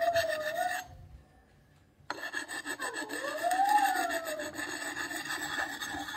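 Lansky sharpening puck, coarse side, rubbed in quick strokes along a steel axe edge: a steady rasping scrape of stone on steel. The rasping stops for about a second and resumes suddenly. A faint whine rising and falling in pitch sounds along with it.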